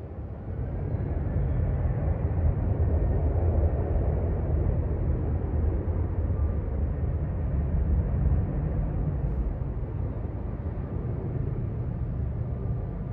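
A low, steady rumble of noise that swells up in the first second and then slowly eases off.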